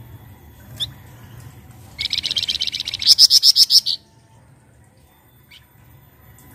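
Flamboyan songbird calling: a short rising chirp, then about two seconds in a fast rattling trill of quick repeated notes that grows louder and stops abruptly, followed by another faint chirp.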